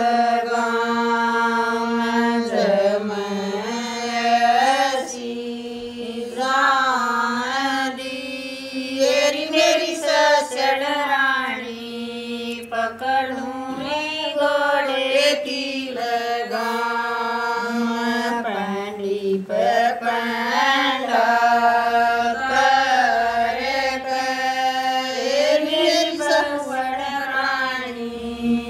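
Women singing a Haryanvi Sawan folk song unaccompanied, a slow melody of long held notes that bend and slide between pitches.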